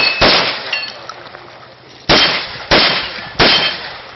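Saiga 12 semi-automatic shotgun firing four shots: a pair near the start, then three in quick succession over the last two seconds. Each report is followed by a short metallic ring of steel targets being hit.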